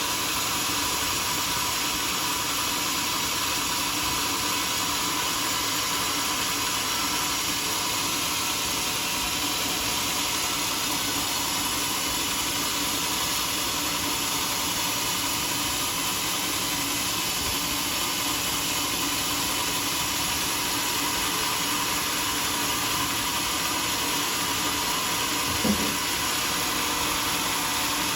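Sawmill machinery running steadily, a continuous even hissing noise, with one brief chirp near the end.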